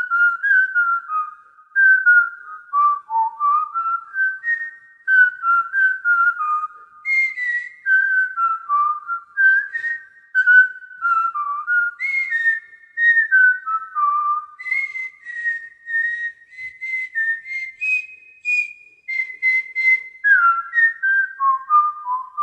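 A person whistling a tune in clear, pure notes that step up and down in pitch, one note every fraction of a second, without a break.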